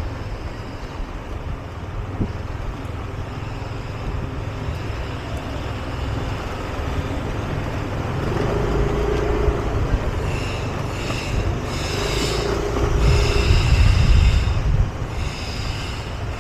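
Yamaha scooter being ridden slowly through town, its small engine running under heavy wind rumble on the rider's microphone, with passing traffic. In the second half, high-pitched tones come and go several times.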